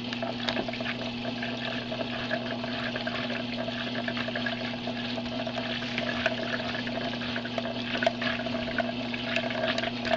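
Tornado-demonstration machine running at a raised setting: a steady electric hum under continuous watery splashing and bubbling.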